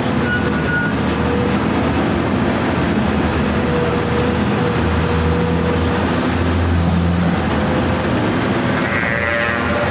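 Komatsu PC200 hydraulic excavator working, its diesel engine running steadily with a wavering whine over it. A higher squeal comes in near the end.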